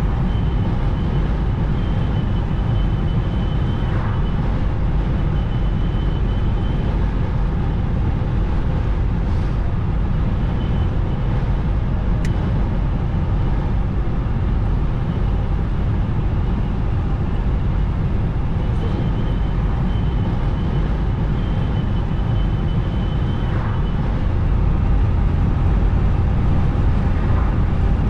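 Steady road noise inside a moving car's cabin: a low rumble of tyres on asphalt and the running engine. A faint thin whistle comes and goes twice.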